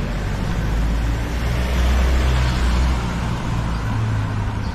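A motor vehicle passing close by on the street, with a deep engine rumble and tyre noise that swell to their loudest about two seconds in and then ease off.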